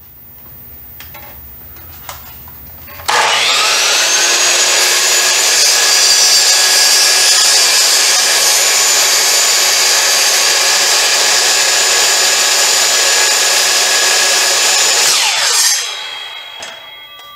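Miter saw spinning up about three seconds in, then running steadily with a high whine as the blade makes a slow 45° back cut into painted wood trim. Near the end the saw is switched off and winds down, its pitch falling.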